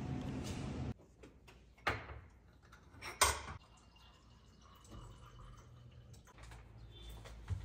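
Steady shop background noise that cuts off after about a second. Then, in a quiet kitchen, two sharp knocks about a second and a half apart, the second the louder, from kitchen items being handled and set down on a counter, with a faint high steady tone afterwards.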